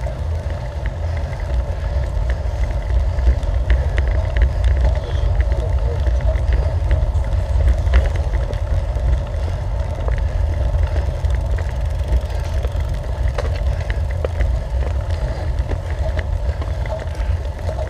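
Wind rumbling on the microphone, with steady tyre and road noise, from a road bike riding at speed on tarmac.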